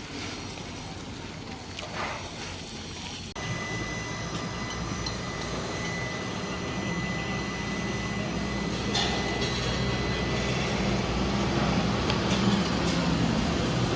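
Steady low engine rumble that grows slowly louder. A thin high whine sits over it for several seconds, from about three seconds in.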